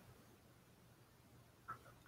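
Near silence: room tone, with one faint, brief sound near the end.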